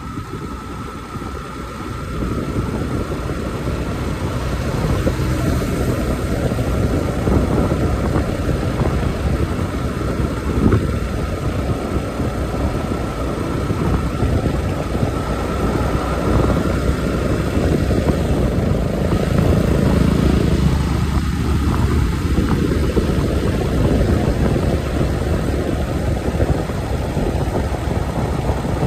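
Wind rushing over the microphone with a Yamaha motorcycle's engine and tyres running at a steady cruise, the level creeping up slightly as the bike gathers speed. A thin steady whine runs alongside and stops a little past halfway.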